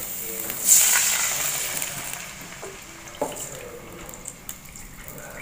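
Water poured from a bowl into a hot wok of frying shallots, garlic and chilli. It sets off a loud hissing sizzle about a second in that fades over the next couple of seconds. A light knock follows about three seconds in.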